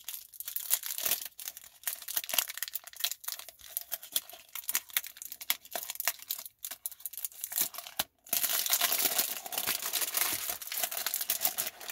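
White wrapping paper being torn and peeled off a small glass block, crinkling and crackling under the fingers. After a brief pause about eight seconds in, the crinkling turns louder and denser.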